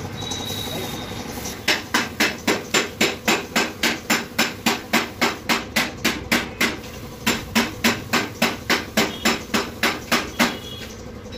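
Hammer blows in a steady rhythm, about three strikes a second, with a short break about seven seconds in.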